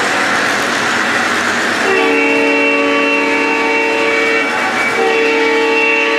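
Lionel Southern Pacific heritage diesel #1865's onboard sound system sounding a multi-chime diesel horn, over the running noise of the model trains on the track. A long blast starts about two seconds in, and a second begins about a second before the end.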